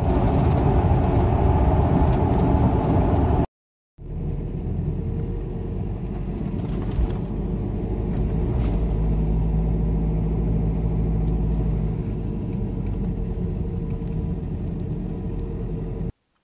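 Strong wind blowing against a dome tent, heard from inside as a steady low rush, broken by a brief silent gap about three and a half seconds in.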